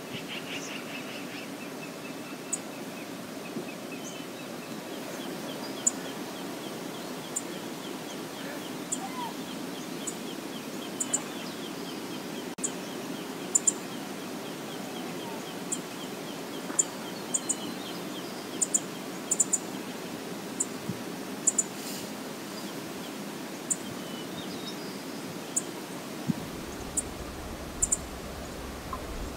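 Steady rush of flowing river water, with brief high bird chirps, singly and in pairs, scattered every second or two. A faint fast trill runs through the first half.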